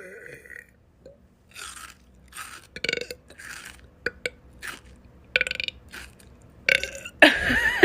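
A woman burping again and again, short separate burps, with a longer, louder burp near the end.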